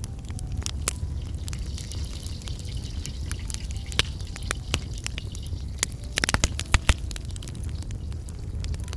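Wood fire crackling in a small clay stove under a wok while potato fries are frying, with a metal spoon scraping and knocking in the pan; a burst of louder clicks and knocks comes a little after the middle.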